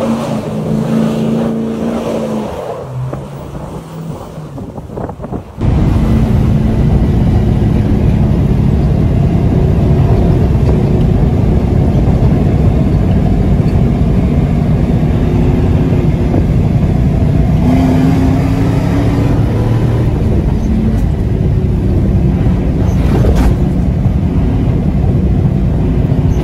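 Rock music fading out; then, about five seconds in, a sudden switch to loud engine noise: a lifted Jeep Grand Cherokee WJ running hard as it drives fast across packed dirt.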